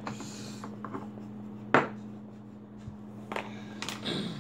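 Steady low hum, with a sharp click a little under two seconds in and a softer click about three and a half seconds in. A brief muffled vocal sound comes near the end.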